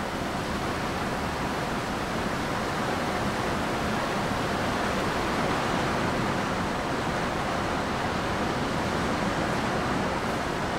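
Steady, even rushing hiss of background noise with no distinct events.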